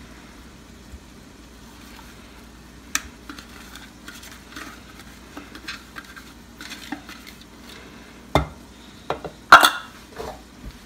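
Riced cabbage being scraped and tipped out of a plastic food-processor bowl into a cloth-lined bowl: soft rustling with sharp knocks of the plastic bowl being tapped against the rim to shake out the last bits, a cluster of louder knocks near the end. Under it runs a steady low hum.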